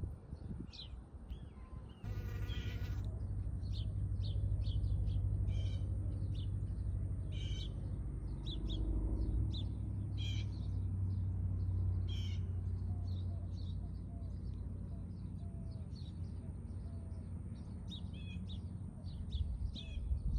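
Honeybees buzzing close by in a low, steady hum that starts about two seconds in, with birds chirping repeatedly in the background.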